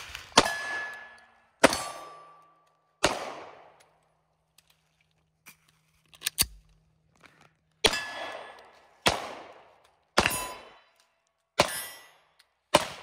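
Tisas 1911 Carry DS 9mm pistol fired three times about a second apart, then a pause with the clicks of a magazine being inserted and the slide dropping, then five more shots at the same pace. A short metallic ring follows some of the shots.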